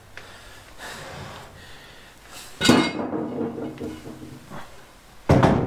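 Two loud metallic clunks of a heavy machine-tool part being set down and shifted, about a second in from the middle and again near the end, each with a brief metal ring, amid quieter handling knocks.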